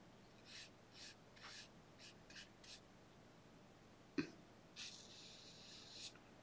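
Faint swishes of a flat watercolour brush dragged over paper, about six short strokes in quick succession, then a small tap and a longer, softer swish near the end.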